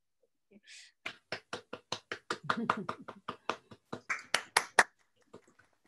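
Hands clapping in a quick, even run of about twenty claps, about five a second, stopping near the end.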